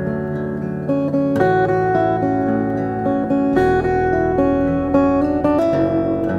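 Background music: acoustic guitar playing a strummed and plucked chord progression.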